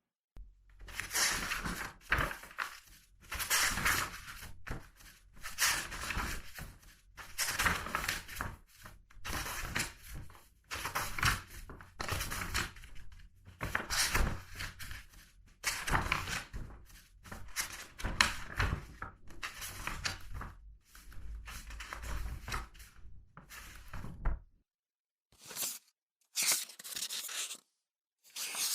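Paper pages of a book being turned one after another, a crisp rustling swish about once a second. After a pause near the end come a few separate single page swishes.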